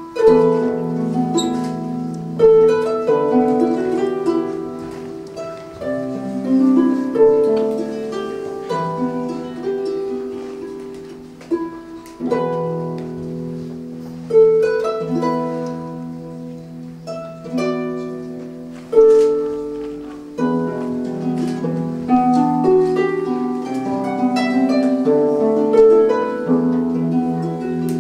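Solo lever harp played live: a plucked melody over ringing bass notes and chords, phrases opening with a loud plucked chord every few seconds.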